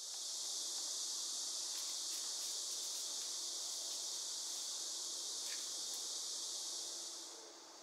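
A steady chorus of insects, a dense high hiss with no break in it, fading out near the end.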